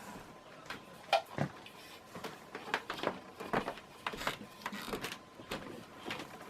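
Ceiling fan parts being handled and unpacked from their box: scattered light knocks and clicks, the sharpest a little over a second in.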